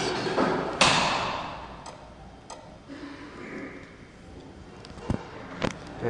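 Buttons pressed on a Schindler destination-dispatch lift keypad, giving a handful of sharp clicks and taps. The first, about a second in, is a loud knock that rings off for about a second; the rest are lighter, two of them close together near the end.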